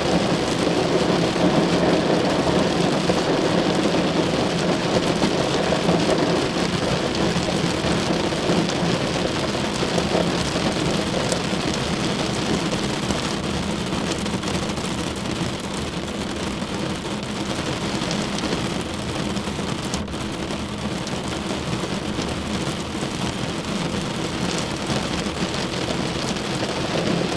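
Steady rain drumming on a car's roof and windows, heard from inside the car: a dense patter of drops on metal and glass, a little heavier for the first few seconds and then even.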